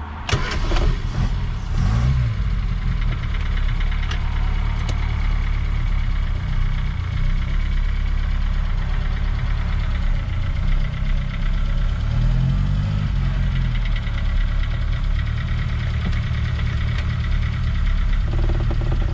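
Reliant Regal three-wheeler's small four-cylinder engine running as the car pulls away and drives along, heard from inside the cabin. The engine rises and falls in pitch briefly about two seconds in and again around twelve seconds in, after a short clatter at the start.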